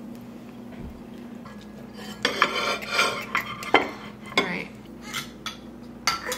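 A fork and ceramic plates clinking and scraping as food is served: a scraping stretch about two seconds in, then several sharp clinks and taps.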